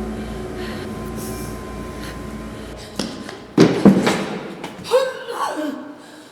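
A steady low drone, then a click and a heavy double thud about three and a half seconds in, followed by a few short wordless vocal sounds from a person, gliding in pitch.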